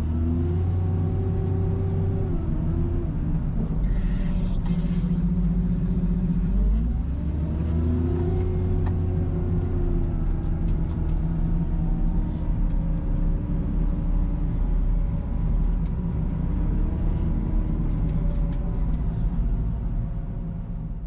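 Case 721E wheel loader's diesel engine running under load while pushing snow, heard from the cab; its pitch rises and falls as it revs about a second in and again around seven seconds. Between about four and nine seconds a hiss rides over the engine.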